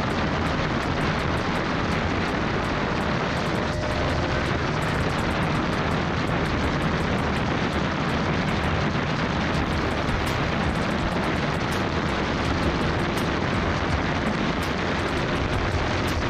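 Heavy wind rush on the microphone during a high-speed run on a Bajaj Pulsar RS200 motorcycle, its single-cylinder engine faintly heard beneath the steady wind noise.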